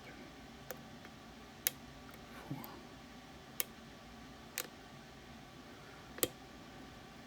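Five sharp, separate clicks from the pin tumblers of a Medeco Biaxial cam lock as a pick lifts and releases them, spaced irregularly a second or two apart.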